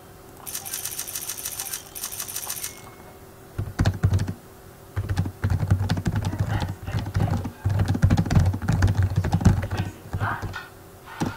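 Typing on a computer keyboard: irregular runs of quick keystrokes starting about three and a half seconds in. Before it comes a short rapid run of high, evenly spaced clicks.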